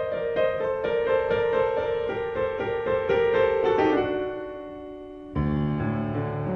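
Background piano music: a run of quick notes in the upper register that fades after about four seconds, then a fuller chord with low bass notes comes in about five seconds in.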